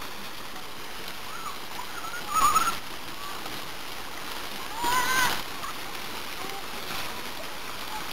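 Steady splashing of water pouring off a children's water-play slide into a shallow pool. Two short high-pitched children's shrieks ring out over it, about two and a half and five seconds in.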